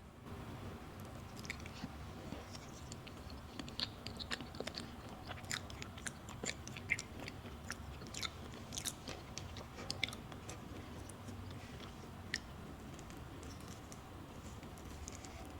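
Chewing a matcha pudding crepe, with a steady run of small mouth clicks and smacks that are thickest in the middle of the stretch.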